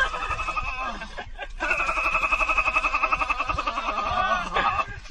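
A man laughing: a long, high, rapidly pulsing laugh of about three seconds, after a few shorter laughing sounds.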